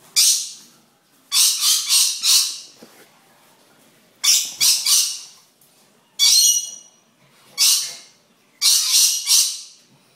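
Dusky lory squawking: harsh, screechy calls in about six short bouts, some made of two or three calls in quick succession. The bout a little past the middle is more whistle-like than the rest.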